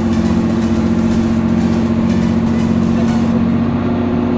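Passenger boat's engine running steadily: a loud, even drone heard inside the cabin.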